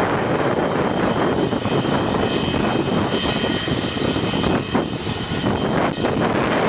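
Boeing 737-200C's Pratt & Whitney JT8D turbofan engines running as the jet taxis: a steady jet roar with a thin high whine over it, and a couple of brief clicks around the middle.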